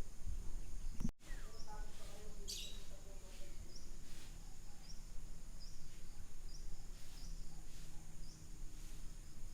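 Outdoor morning ambience: birds calling, with a short high chirp repeating about every three-quarters of a second, over a steady low rumble. The sound drops out briefly just over a second in.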